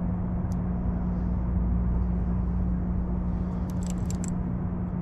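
Steady low motor hum from the boat, even and unchanging. Near the end come a few quick ticks as the baitcasting reel is cranked against a hooked fish.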